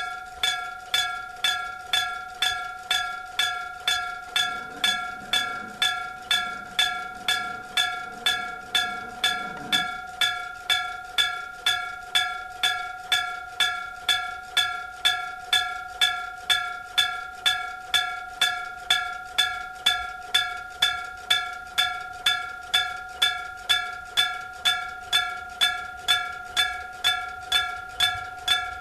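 Japanese railway level-crossing electric bell (denshō-type crossing alarm), its metal bell struck by an electric striker at an even pace of a little under two strikes a second. Each strike rings on briefly into the next. This is the crossing's warning that a train is approaching.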